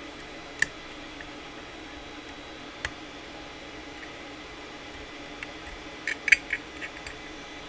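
Small metallic clicks of a pick working the pins of a Zeiss Ikon cross-lock night latch, over a steady low hum. There is a single click under a second in and another near three seconds, then a quick cluster of several clicks around six seconds as the pins set.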